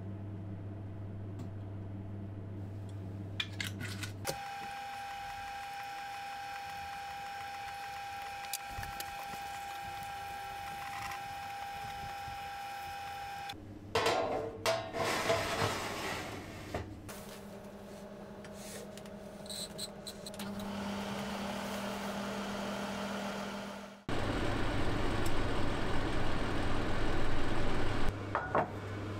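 A string of separate sounds: a steady hum, then a steady high tone, then metal knocks and clatter as a bare cast iron skillet is set on an oven rack about 14 seconds in. After that comes a steady low hum, and in the last five seconds a louder steady rushing noise over a low hum.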